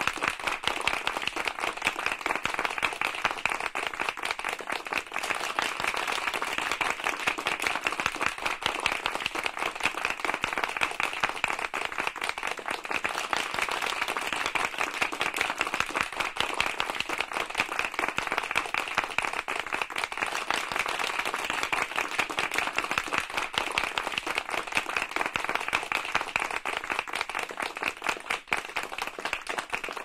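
Audience applauding: many hands clapping in a dense, steady patter that keeps up without a break.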